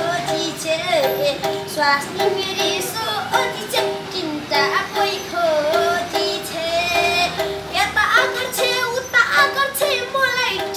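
A boy singing a Nepali folk song in a high voice, the melody gliding and wavering between held notes, over short notes repeated on one pitch in a steady rhythm from the Nepali sarangi he holds.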